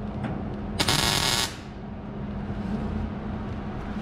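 A welder firing one short tack weld, a burst of about two-thirds of a second about a second in, joining a new sheet-steel floorpan edge to the transmission tunnel. The welder thinks this tack missed the mark.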